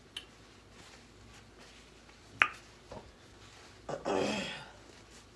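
Close sounds of a person eating and handling things: a sharp click about two and a half seconds in, a smaller click just after it, then a short breathy burst from the mouth lasting under a second.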